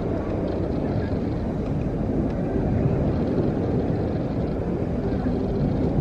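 Steady low roar of a wave pool's water churning and breaking as its waves roll through.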